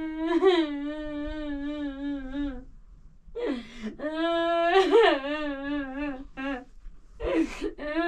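A high voice humming a slow melody in long held notes with a wavering vibrato, in phrases of about three seconds, with a short breath about three seconds in and again near the end.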